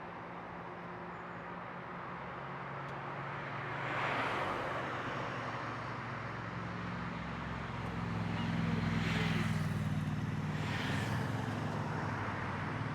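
Road traffic going by: a steady rush of vehicles with a low engine hum that grows louder from about two-thirds of the way in, and tyre hiss swelling as cars pass, three times.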